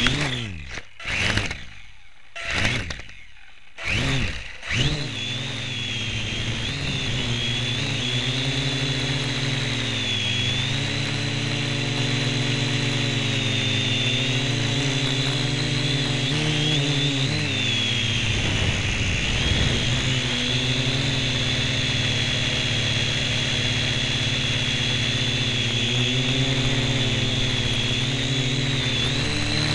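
Syma X1 quadcopter's four small electric motors and propellers, heard up close from a camera strapped on top of it: four short spin-ups that rise and fall in the first five seconds, then a steady whine in flight whose pitch wavers as the throttle changes.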